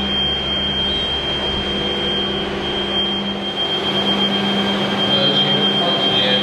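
Steady machinery hum with a constant high-pitched whine over a rushing noise bed, even throughout.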